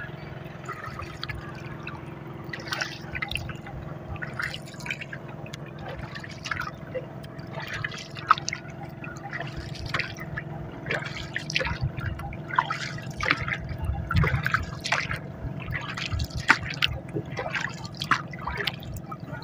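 Water splashing and dripping against a small outrigger boat moving across calm sea: short irregular splashes about once a second over a steady low hum.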